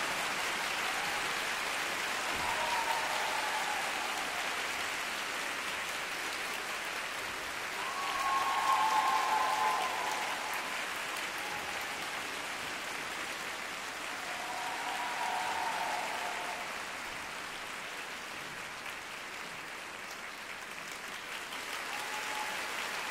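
Ice show audience applauding steadily, with louder swells about eight and fifteen seconds in.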